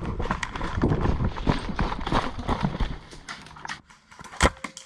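Fast, irregular footfalls with rustling and rattling, like a player running over rough ground in gear, for about three seconds. Then a quieter stretch and one sharp snap near the end.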